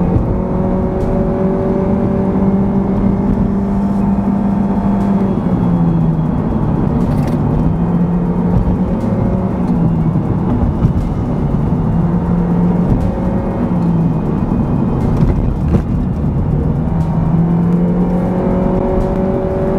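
Honda Civic Hybrid's 1.3-litre four-cylinder engine running under load, heard from inside the cabin. Its drone holds a steady pitch, dips, and climbs back several times as speed changes through the bends, over a steady hiss of tyres on the wet road.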